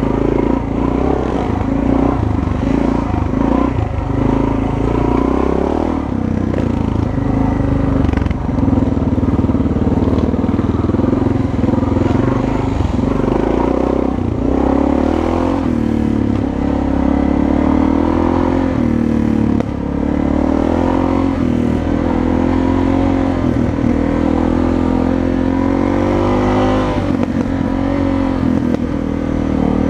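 Dirt bike engine under way on a rough trail, its revs rising and falling over and over with the throttle, heard from a helmet-mounted camera.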